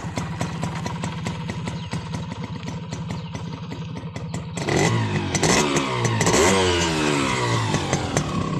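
Honda H100S motorcycle's small single-cylinder four-stroke engine idling with a fast ticking clatter, then revved once about halfway through, its pitch rising and sliding back down to idle.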